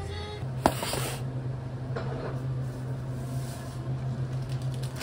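Room tone of a small café: a steady low hum from running equipment, with a sharp knock about half a second in and a fainter click a second later.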